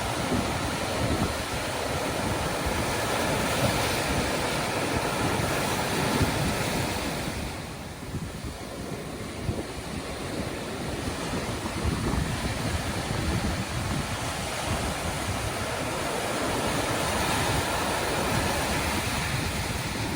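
Sea waves breaking and washing on a shore, a continuous rushing surf that eases off about a third of the way in and then builds again, with some wind buffeting the microphone.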